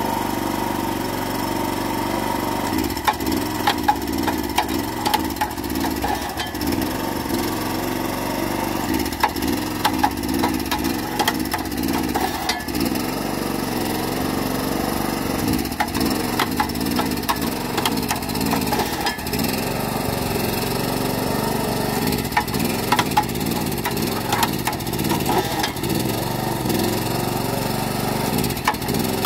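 Small petrol engine of an Ezendam rootballing machine running steadily, with frequent sharp clicks and knocks from the digging spades working the soil.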